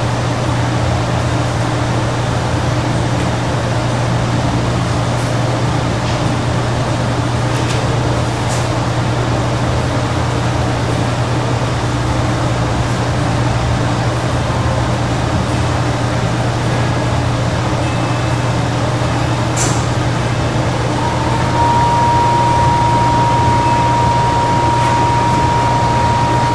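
Steady background noise with a low hum, without speech. A thin, steady high tone comes in about twenty seconds in and holds to the end, and there are a couple of faint clicks.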